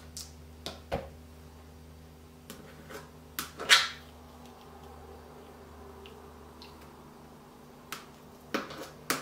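Spoon scooping margarine out of a plastic tub, with scattered clicks and knocks of the spoon against the tub and the mixing bowl; the loudest knock comes a little over halfway through the first half, and another cluster near the end.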